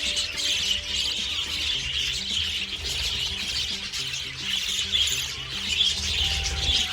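A flock of budgerigars chattering and chirping without pause, under background music of held low notes.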